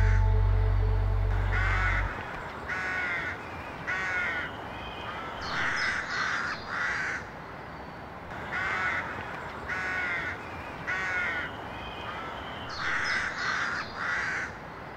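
A deep low drone that fades and cuts off abruptly about two seconds in, then crows cawing again and again, harsh calls often coming in runs of two or three.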